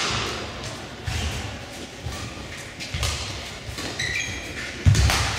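Badminton rackets striking a shuttlecock back and forth in a rally, sharp hits a second or two apart, with players' shoes thudding on the court and squeaking briefly near the end. The loudest hit comes near the end.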